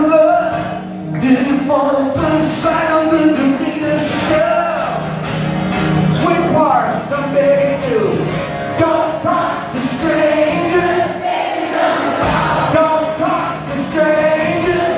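Live rock song: a male voice singing over instrumental accompaniment with a steady beat.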